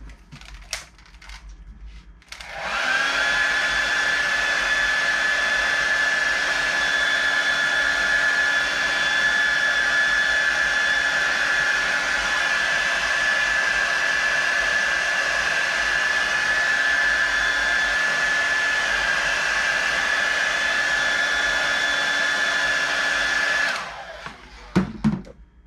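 A small electric appliance motor spins up with a short rising whine, runs at one steady pitch for about twenty seconds, then switches off, followed by a few short knocks.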